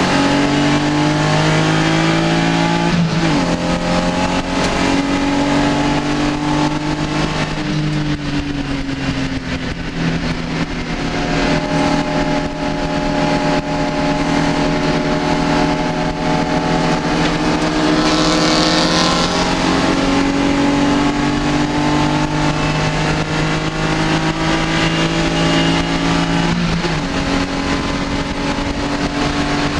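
BMW E36 M3 race car's straight-six engine running hard at high revs, heard from inside the cabin. Its pitch dips briefly about three seconds in and again near the end. It falls away for a few seconds about a third of the way through, then holds steady again.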